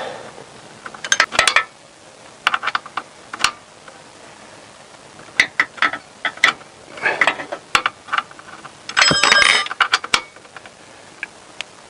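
Metal spanners clinking against each other and the gearbox drain plug as they are fitted and worked, in several short bursts of clicks, with a brief ringing metallic clang about nine seconds in.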